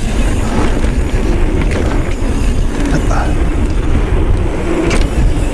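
Mountain bike rolling fast down a dirt trail: steady wind rush on the microphone over the rumble of knobby tyres on packed dirt, with scattered clicks and rattles from the bike.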